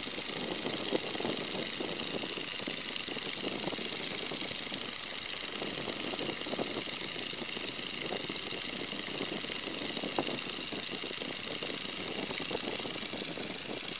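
Boeing N2S-3 Stearman biplane's Continental R-670 radial engine running steadily in flight, during a banking turn.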